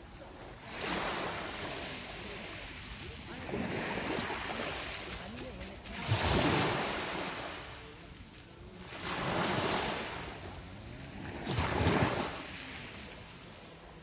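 Small sea waves breaking and washing up a pebble beach, a surge of surf about every two to three seconds, five in all.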